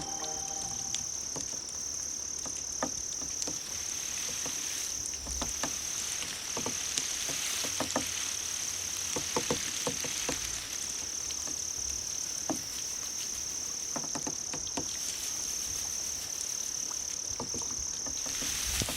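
Crickets trilling steadily at a high pitch, with scattered soft clicks.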